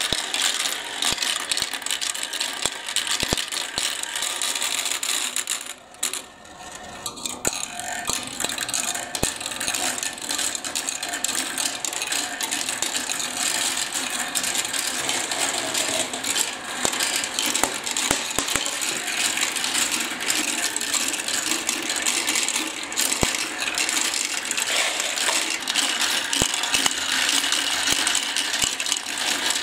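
Small plastic balls rolling and clattering through plastic marble run tracks: a continuous dense rattle of many small clicks, briefly dropping about six seconds in.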